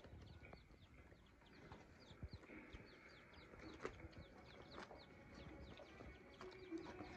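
Teetar (partridge) chicks peeping faintly: a quick run of short, high, falling peeps, a few each second, with a few soft knocks in between, the clearest about four seconds in.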